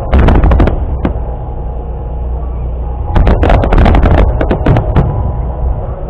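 Starmine fireworks barrage: shells bursting in rapid loud bangs, in a cluster during the first second and again from about three to five seconds in, with a low rumble and music playing underneath.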